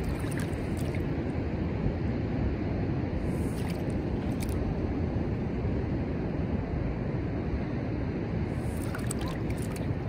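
Steady beach ambience: wind rumbling on the microphone over the rush of ocean surf, with a few faint light ticks now and then.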